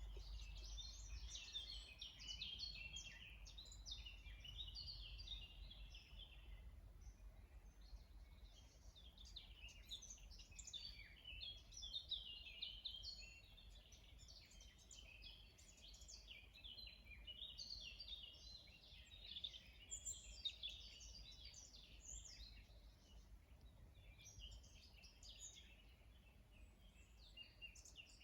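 Many songbirds singing at once, a dense chorus of short, rapid chirps and trills that overlap without pause, over a faint low rumble.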